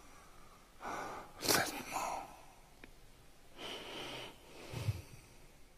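A man's heavy, noisy breathing in a pause between spoken lines: a few breaths, the loudest about a second and a half in.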